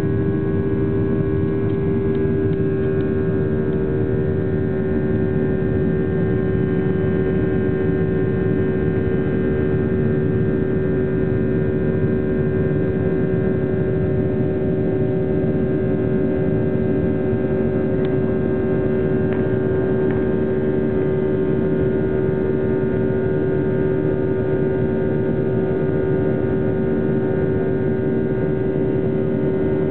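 Boeing 737-800's CFM56 jet engines heard inside the cabin during the climb after take-off: a loud, steady drone with a strong hum and several higher steady tones over a low rumble.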